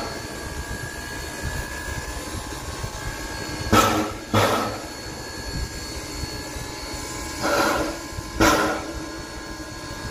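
Steam locomotive standing with steam up, giving short bursts of steam exhaust in two pairs, about four and eight seconds in, over a steady background noise.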